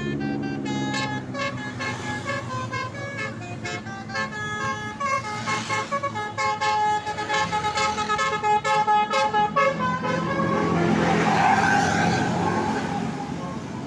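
Tour bus's basuri 'telolet' musical horn playing a quick tune of stepped notes, with a run of fast staccato notes in the middle. About ten seconds in, the tune gives way to a loud rushing noise that fades toward the end.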